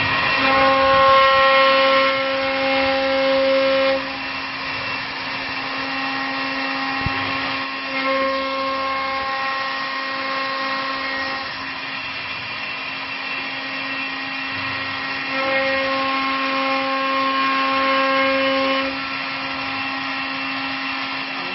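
A three-axis CNC wood lathe with rotary carving spindles cutting three wooden baluster columns at once: a steady high motor whine with a low hum. It swells louder for a few seconds three times.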